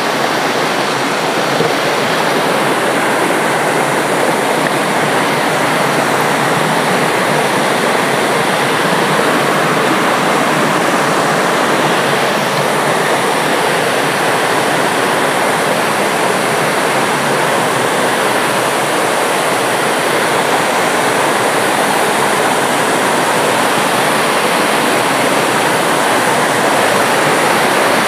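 Small waterfall and rocky stream rushing over boulders into a pool: a steady, unbroken rush of water.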